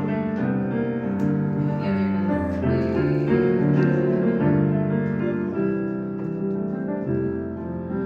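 Piano-toned keyboard playing slow, held chords that change about once a second, as the instrumental opening of a song.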